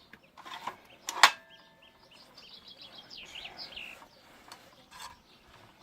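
Birds chirping in a quick run of short calls, with a few sharp knocks, the loudest a little over a second in.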